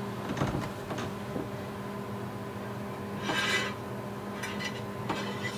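Galley oven being opened and a hot pan drawn out: a few light knocks, then a short rasping metal scrape about three seconds in, over a steady hum.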